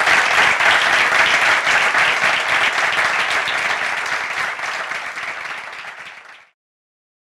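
An audience applauding steadily, many hands clapping together. The clapping slowly dies down and then cuts off suddenly near the end.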